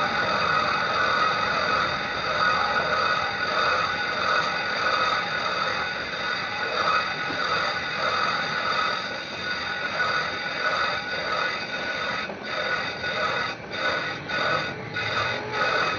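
A machine running steadily with a constant high whine. Near the end the sound breaks into quick, uneven pulses.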